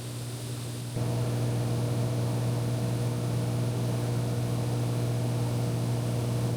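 Beechcraft Bonanza V35's engine and propeller droning steadily in cruise, heard as cabin noise. It steps up a little louder about a second in.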